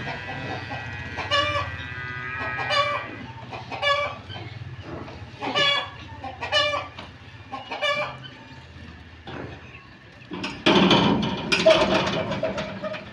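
Chickens clucking in short, separate calls about once a second, after a longer held call in the first few seconds. A louder, rougher noise comes in for the last two seconds or so.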